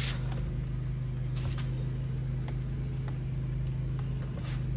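Recoil starter rope of a Husqvarna two-stroke string trimmer being pulled a few times, each pull a short rasping burst, over a steady low hum.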